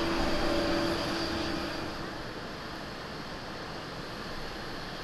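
Boeing 777 jet engines at climb power as the airliner climbs away after takeoff: a steady roar carrying a low hum and a high whine. About two seconds in, it fades to a quieter, even rush of jet noise.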